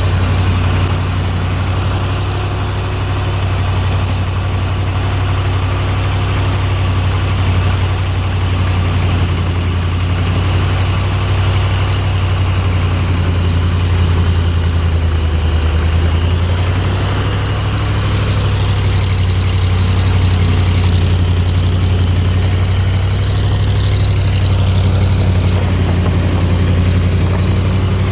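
Engine of a 302 air compressor running steadily at a constant speed on a newly fitted fuel pump, which the owner says makes it run better.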